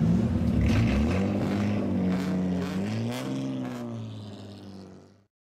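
Toyota Mark II GX71's straight-six through a straight-pipe exhaust, blipped up and down several times as the car pulls away, then fading out.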